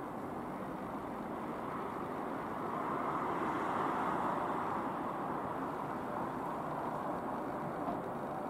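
Dassault Falcon 20DC jet flying past, the steady rush of its twin turbofan engines growing louder about three seconds in and easing off again after.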